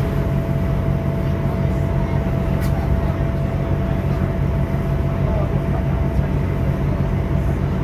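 Class 166 diesel multiple unit running, heard from on board: a steady underfloor diesel drone with a constant thin whine above it, and a single click about two and a half seconds in.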